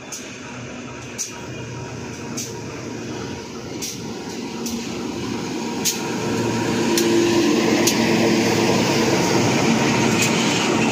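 GE CC 201 (U18C) diesel-electric locomotive approaching and passing close by, its V8 diesel engine running with a steady hum. The sound grows louder over the first seven seconds and stays loud as the locomotive goes by, with sharp clicks at irregular intervals.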